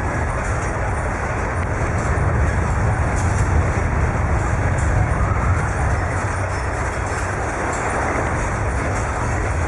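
Deep, steady rumbling with faint rattling as a building shakes in an earthquake, swelling slightly a few seconds in.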